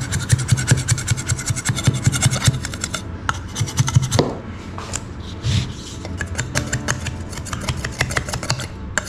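Serrated knife sawing back and forth through a cured polyester-putty mold block, a rapid rough rasping scrape. The strokes are lighter after about halfway.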